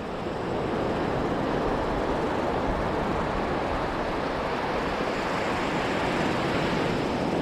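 Steady rushing of wind buffeting the microphone, mixed with the wash of breaking surf.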